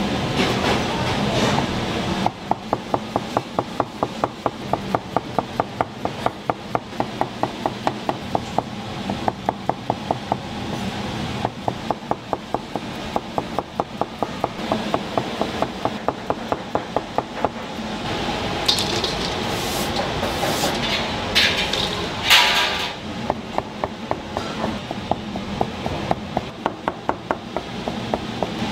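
Steady rhythmic knocking, about three sharp strikes a second, which pauses for about five seconds in the middle. A few short hissing bursts fill the pause.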